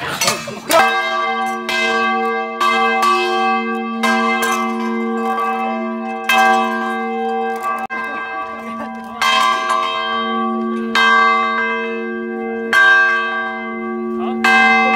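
Deep ringing bell tones, struck again every one to three seconds over a steady low hum.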